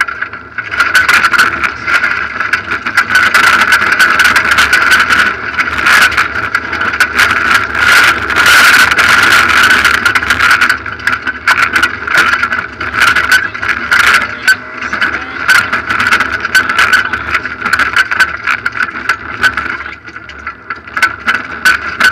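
Rally car engine running hard at high revs, heard from inside the cabin, with loose gravel crackling and pinging against the underside. The engine eases off briefly near the end before pulling hard again.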